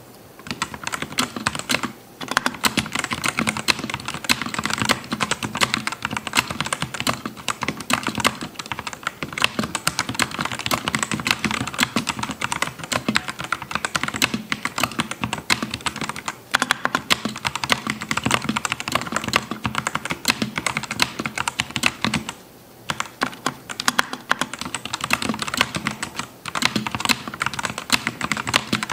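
Continuous fast typing on a custom 68% mechanical keyboard (CIY Tester 68 barebone) fitted with Outemu Red linear switches, a dense run of key clacks with brief pauses about two seconds in and again past twenty-two seconds.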